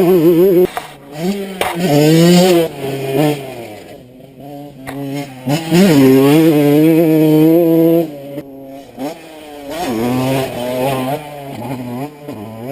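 Kawasaki KX125 motocross bike's 125 cc single-cylinder two-stroke engine revving up and down as it is ridden, its pitch climbing and dropping again and again with throttle and gear changes. Loudest around two seconds in and from about six to eight seconds, quieter in between.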